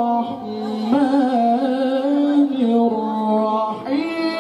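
A male Quran reciter (qari) chanting in melodic tilawah style, holding a long ornamented melisma that steps between sustained notes. There is a short break just after the start and a slide up in pitch near the end.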